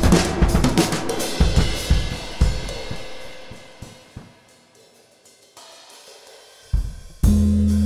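Background music from the film's original score: a drum kit with crashing cymbals and hi-hat plays and dies away to near quiet about four seconds in. Near the end a thump is followed by a loud, sustained low note.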